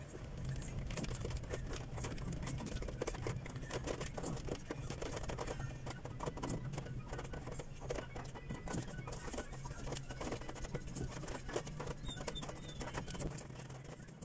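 Rain pattering on a car's roof and windshield, heard from inside the cabin as a dense spray of little ticks, over the low steady hum of the car.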